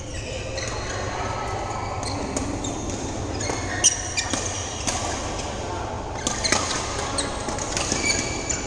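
Badminton play in a large echoing sports hall: scattered sharp pops of rackets striking shuttlecocks, the loudest about four seconds in, with short squeaks of court shoes on the floor over a hum of voices.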